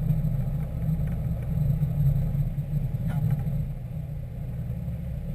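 Sport-fishing boat's engines running with a steady low rumble.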